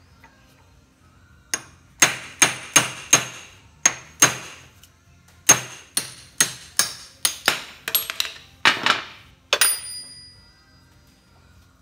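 A hammer striking a steel punch set in the eye of a brass hammer head, driving out the stuck old handle. About eighteen sharp metallic strikes come in two quick runs with a short pause between, and the last strike is left ringing.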